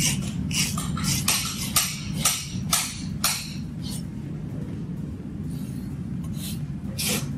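Farrier's hoof rasp drawn across the bottom of a horse's hoof, leveling the trimmed wall and sole into one flat plane. Quick scraping strokes come about two a second for the first three and a half seconds, then pause, with one more stroke near the end.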